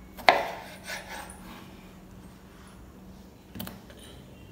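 Kitchen knife slicing through a tomato and knocking on a plastic cutting board: one sharp knock just after the start, then a few fainter taps. A faint steady hum runs underneath.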